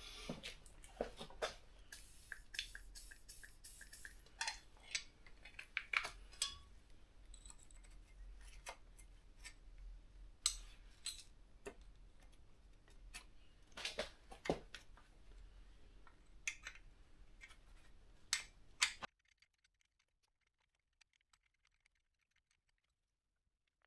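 Small metal tools and parts being handled on a workbench: scattered clicks, clinks and light knocks at an irregular pace, stopping abruptly about nineteen seconds in.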